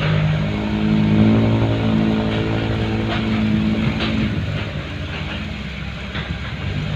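Diesel dump truck engine running, a steady low drone that eases off after about four seconds, with a few short clicks.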